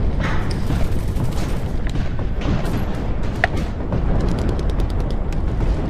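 Airsoft gunfire: scattered sharp shots, then a rapid automatic burst of about ten a second for a second or so near the middle, over a constant low rumble.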